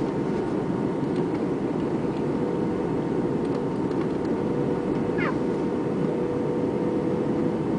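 Steady cabin noise inside an Airbus A320 airliner in flight: the even rush of engines and airflow with a faint steady hum. A brief high squeak about five seconds in.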